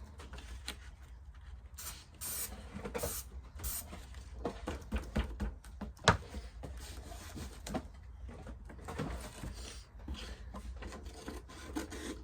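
Paper rustling and rubbing against a cardboard shoebox as paper is pressed and smoothed onto its tacky, adhesive-sprayed surface. There are short scratchy bursts a couple of seconds in and a sharp tap about six seconds in.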